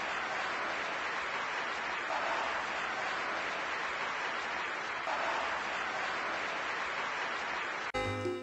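A large theatre audience applauding: steady, dense clapping that swells gently and cuts off suddenly near the end.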